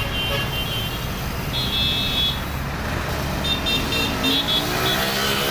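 Heavy diesel cargo truck pulling past close by in busy traffic, its engine rumbling low, with two short bursts of high-pitched tones over it. Near the end an engine revs up.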